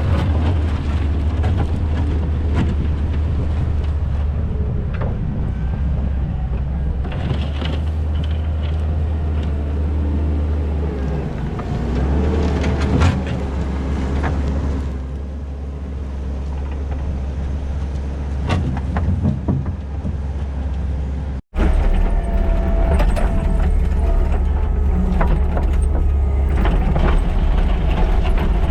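Kubota SVL97-2 compact track loader's diesel engine running steadily under load while grading, with scattered knocks and scraping from the tracks and blade working dirt and stone. The sound cuts out for a moment about 21 seconds in and picks up again.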